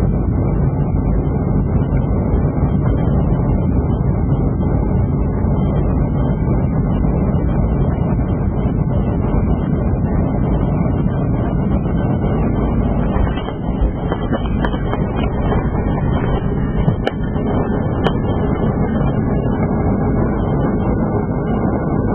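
Boeing 757 landing, heard inside the cabin: a steady roar of engines and rushing air. The roar dips briefly about halfway through, and a few sharp knocks follow over the next few seconds as the aircraft touches down and rolls along the runway.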